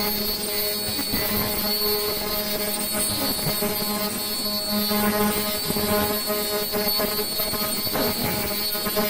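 Automatic sanitary pad production machine running at speed: a steady mechanical drone with several steady humming tones.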